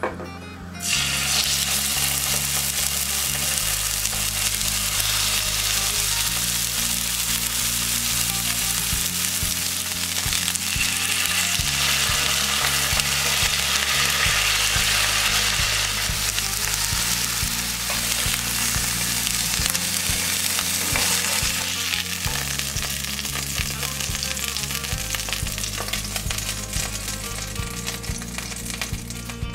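Chicken breasts frying in hot oil in a pan, a dense steady sizzle that starts about a second in and eases slightly near the end, over quiet background music.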